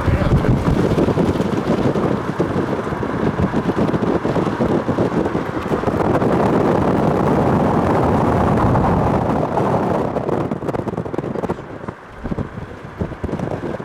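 Wind buffeting the microphone: a loud, rough rush that weakens about ten seconds in.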